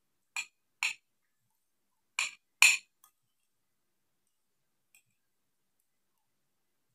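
Metal spoon clinking against a ceramic bowl while scooping food: four short, sharp clinks in two pairs within the first three seconds, then one faint clink about five seconds in.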